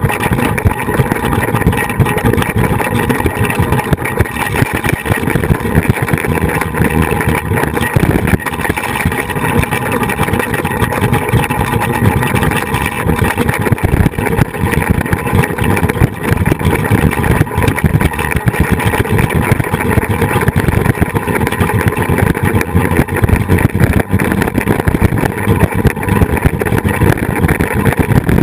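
Wind buffeting the microphone of a camera riding on a flying fox (zipline) trolley at speed: a loud, steady, gusty rumble.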